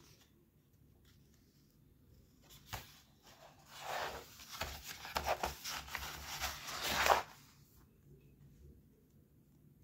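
Paper pages of a book being turned and handled: a faint tap, then a few seconds of rustling paper that stops sharply.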